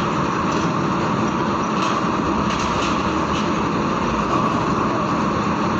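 Heavy tandem-axle trucks driving off a ferry: steady diesel engine and rolling noise, with a few short knocks at intervals.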